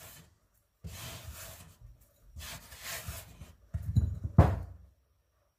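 Hands brushing chopped chocolate crumbs across a wooden chopping board and into a ceramic bowl, in three short scraping strokes, with one sharp knock of the bowl near the end.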